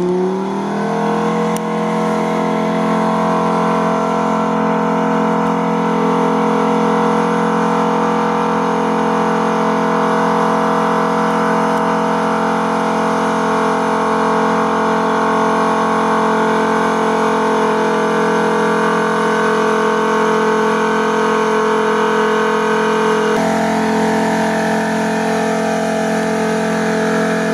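Off-road prototype buggy's engine revving up in the first second, then held at high, steady revs as the buggy pushes through deep water.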